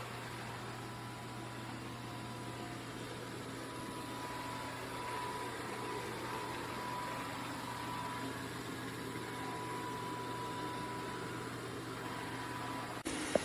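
MOVA S10 robot vacuum running, a steady motor whir and hiss with a faint high whine.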